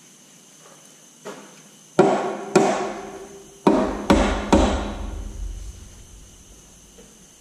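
Hammer blows on a Detroit 3-53 diesel's flywheel housing as it is knocked into place on the engine block. A light knock comes first, then five sharp strikes in about two and a half seconds, each ringing briefly.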